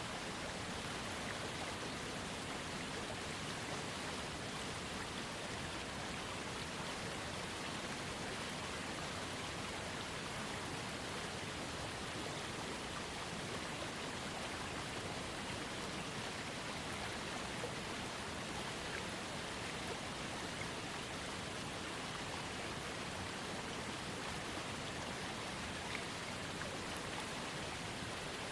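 Small waterfall on a trickling creek, water falling and splashing in a steady, even rush.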